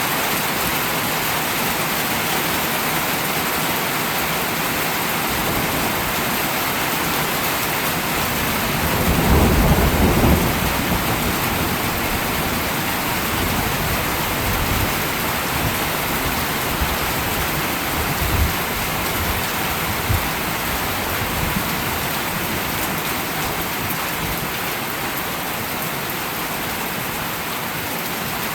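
Steady rain falling, with a low roll of thunder about nine seconds in, the loudest part, and a few fainter low rumbles later.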